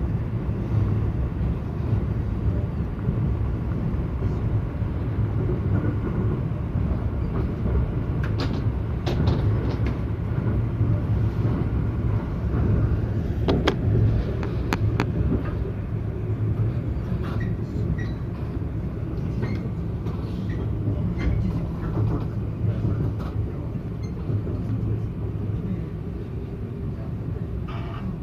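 Local electric train running, heard from inside the carriage: a steady low rumble of motors and wheels on the rails, with a few sharp clicks about a third of the way and again about halfway through.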